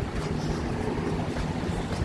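Strong wind buffeting the microphone: an uneven low rushing noise with fluttering surges, and a faint steady hum underneath.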